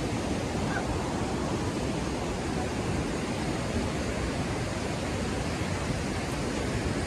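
Steady rushing of a fast mountain river, the Yamuna, running over rocks.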